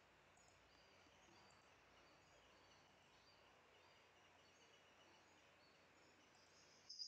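Near silence: faint background hiss with faint, short, high chirps repeating, and a brief louder high sound at the very end.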